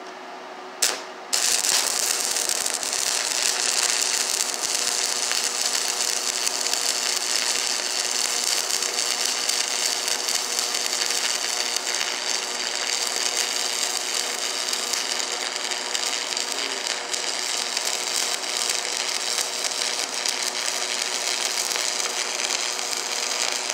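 Stick welding arc: a brief strike about a second in, then the arc catches and crackles steadily as a bead is run across the plate.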